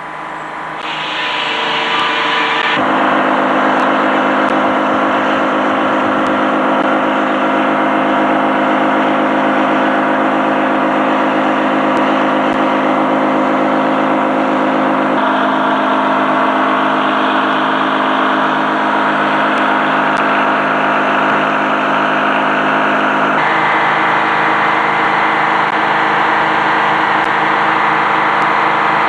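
Antique Frick sawmill running: its power engine and spinning machinery make a loud, steady hum of many fixed tones. The sound swells in over the first few seconds, then holds level, changing abruptly in character about halfway through and again later on.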